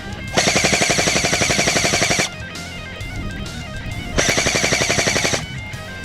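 Two bursts of full-auto fire from an airsoft electric gun, a rapid even rattle of shots over a steady motor whine. The first lasts about two seconds and the second, near the end, just over a second. Guitar music plays underneath.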